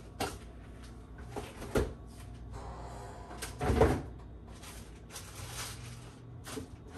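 A few knocks and clatters of things being handled in a kitchen, the loudest about four seconds in, over a low steady hum.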